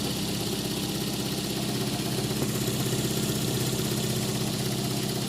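Toyota Corolla engine idling steadily on a newly fitted replacement distributor, while it is being brought up to temperature during a hard-starting repair.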